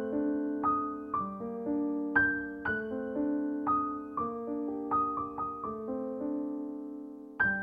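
Slow, soft piano music: single notes struck one after another over held lower notes, each fading away.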